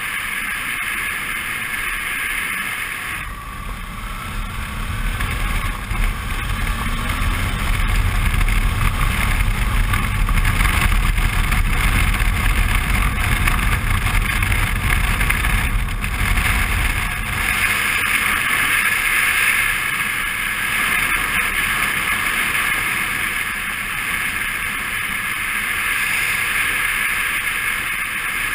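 Suzuki V-Strom 650 motorcycle's V-twin engine running on the move along a dirt road, mixed with steady wind rush on the microphone. The low engine rumble swells through the middle stretch and eases again near the end.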